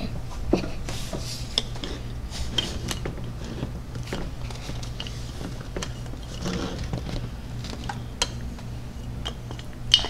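Light scattered clicks and taps of toy breakfast food pieces (a toy waffle and butter pat) being handled on a plate, over a low steady hum.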